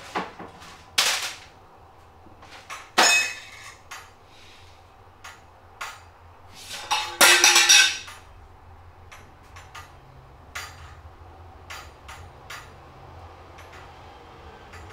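Metal kitchenware falling and clattering onto the floor: sharp knocks in the first few seconds, then the loudest crash with a ringing tone about seven seconds in, followed by light scattered clicks.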